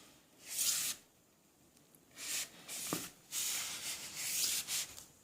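Rubbing, hissing noise in several uneven bursts, one short burst about half a second in and a longer run from about two seconds until near the end, with a faint click around three seconds.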